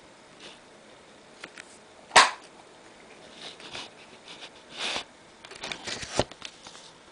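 Handling noise from a handheld camera: a sharp click about two seconds in, then several soft hissing rustles and another click near the end.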